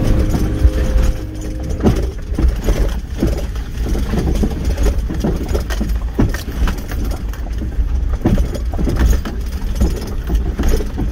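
Inside the cabin of a lifted 2001 Honda CR-V driving slowly over a rough dirt track: a steady low engine and drivetrain rumble with frequent knocks and rattles from the bumps.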